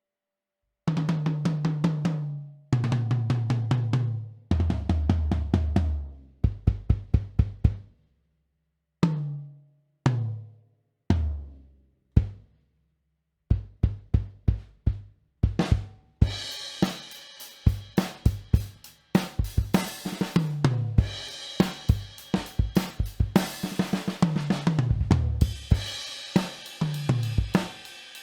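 Pearl Session Custom SMX all-maple drum kit played: fast rolls on each tom in turn, from high to low, then a few single tom hits, then a beat on bass drum and snare (a 1983 Yamaha Recording Custom steel snare), with hi-hat and cymbals joining about halfway through.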